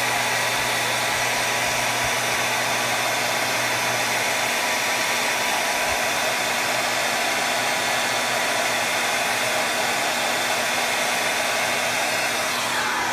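Handheld hair dryer blowing steadily, with a tone sliding down in pitch near the end.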